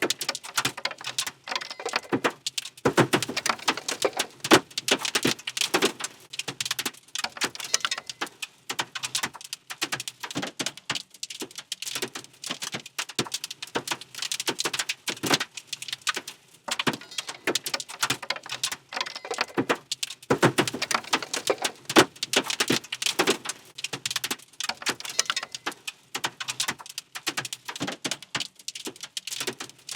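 Sound effect of debris pattering against a vehicle's windscreen: a dense, irregular spatter of small clicks and ticks with occasional heavier knocks, played as a loop.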